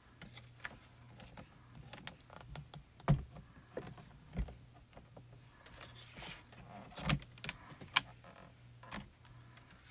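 Handling of a MISTI stamp-positioning tool and a card template on a craft mat: scattered light taps and scrapes with four sharper knocks, over a faint steady hum.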